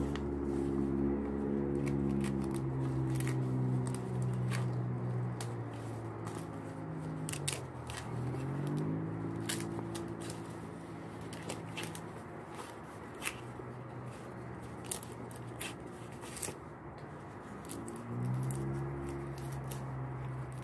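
Large fresh green leaves being split lengthwise by hand, with crisp crackling and ripping of the leaf fibres. Under it a low engine hum comes and goes, rising in pitch three times.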